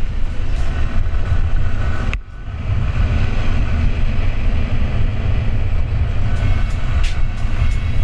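Yamaha R15 V3 motorcycle on the move, with heavy wind rumble on the microphone over the running engine. The sound drops out briefly about two seconds in, then comes back.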